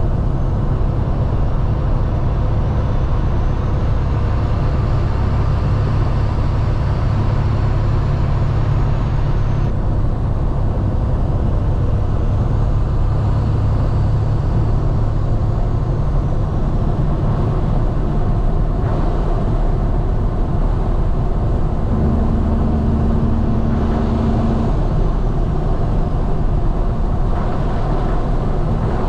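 Kenworth W900L big-rig diesel engine running under way, heard from inside the cab with road noise: a steady low drone whose note shifts a few times, with a brief higher tone a little past two thirds of the way through.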